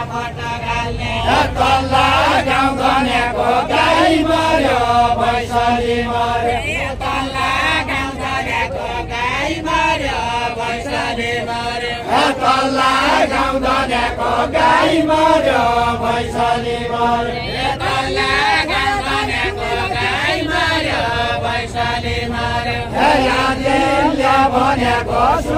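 Voices singing a Deuda folk song, a chanted melody sung in repeating phrases.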